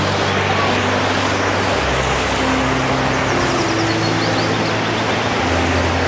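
Waterfall rushing: a loud, steady wash of falling water with no break.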